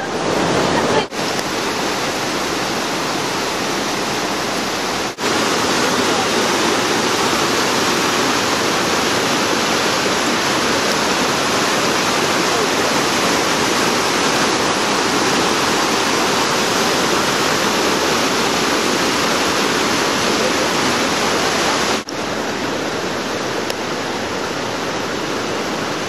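Mountain stream cascading over boulders into a pool: a loud, steady rush of falling water, cut off for an instant three times.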